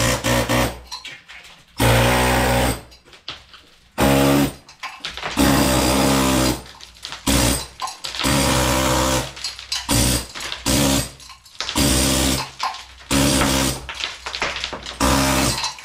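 A handheld power tool chasing a groove into a plaster wall, run in repeated bursts of about a second with short pauses between.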